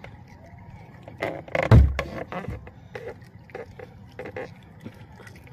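Irregular clicks and scrapes as a small shell is worked open in the hands, with one dull thump about two seconds in.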